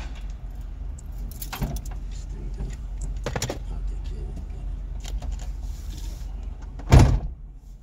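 Scattered light clicks and clinks over a low steady hum, with one heavy thump near the end.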